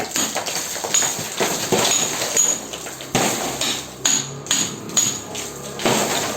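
Hammer striking a steel chisel again and again, about one to two blows a second at an uneven pace, each with a short metallic ring, as loose concrete is chipped out of a damaged beam for repair.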